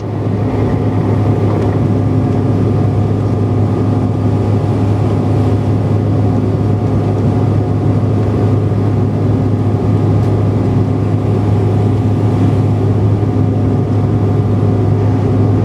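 Steady cabin noise of a Bombardier CRJ900 in flight: its rear-mounted turbofan engines and the rushing air. A strong constant low hum runs under several steady tones, with no change in pitch.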